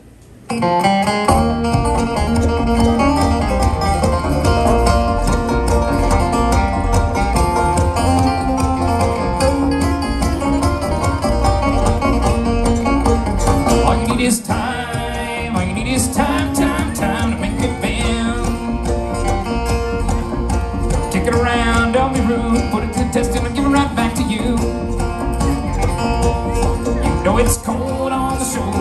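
A bluegrass band playing live on banjo, acoustic guitar, mandolins and upright bass, kicking in about half a second in.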